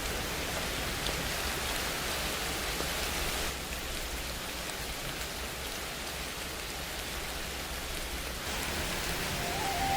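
Steady hiss like rain falling, even throughout, shifting slightly in tone about three and a half seconds in and again near eight and a half seconds. A held musical tone starts near the end.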